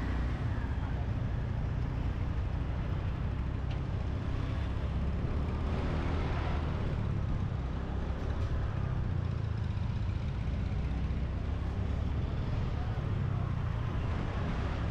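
Street traffic heard from a moving motorbike: a steady low rumble of engine and road noise, with scooters and auto-rickshaws around it. The traffic swells briefly about six seconds in.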